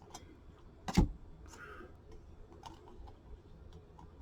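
Scattered light clicks and taps, with one louder knock about a second in.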